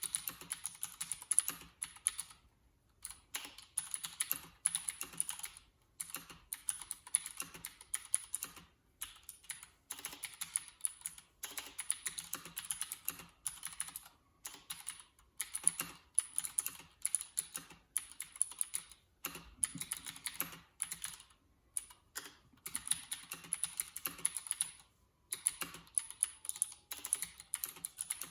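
Typing on a Leopold FC750R mechanical keyboard with clicky Cherry MX Blue switches and PBT keycaps. Fast runs of sharp key clicks are broken by short pauses every few seconds.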